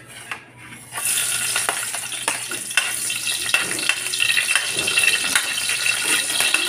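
Garlic hitting hot oil in a wok and sizzling, the sizzle starting suddenly about a second in, with a metal spatula scraping and clicking against the pan as the garlic is stirred.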